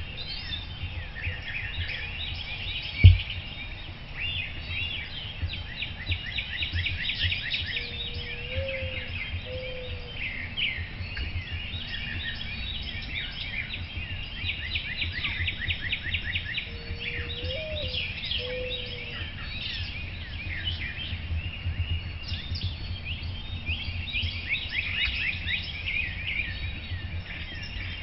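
Dawn chorus of several songbirds chirping and trilling continuously, with a few short low pitched calls repeated in small groups. A single sharp low thump stands out about three seconds in.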